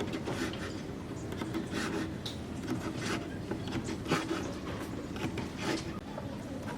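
Irregular rasping strokes of a hand tool working wood, roughly one or two a second.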